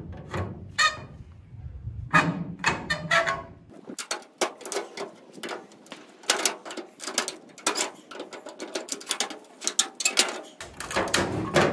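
Hand snips cutting through the plastic slats of a pickup's chrome grille: a run of sharp, irregular snaps and cracks. They are sparse at first, then come thick and fast from about four seconds in.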